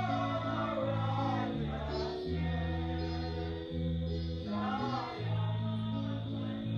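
Music: a song with singing over a bass line that moves in held notes.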